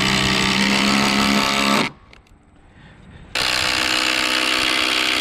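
Ryobi cordless impact driver sinking a long lag screw into a log. It runs steadily for almost two seconds, stops for a moment, then starts again a little past three seconds in.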